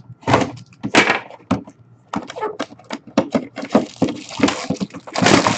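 Plastic seal being cut and torn off a cardboard hobby box, with crinkling wrap and cardboard being handled in a quick run of sharp, irregular rustles and tears.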